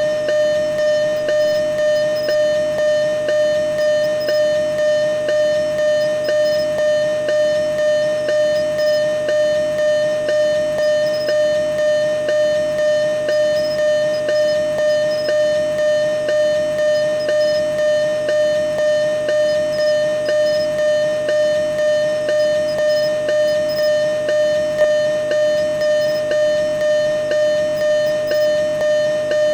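Toy miniature railroad crossing sounding its electronic 'kan-kan' warning bell: a steady, unchanging beeping tone struck in even pulses about three times every two seconds.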